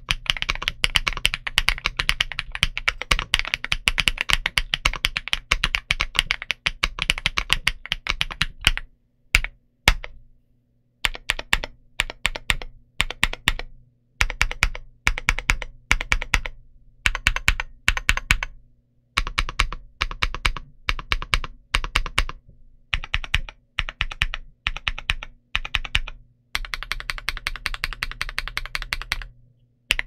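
Gamakay TK75 Pro mechanical keyboard with KTT Hyacinth linear switches and PBT Cherry-profile keycaps being typed on. Fast, continuous typing for about nine seconds, then a few single keystrokes, then short bursts of key presses separated by brief pauses, and another unbroken run of typing near the end.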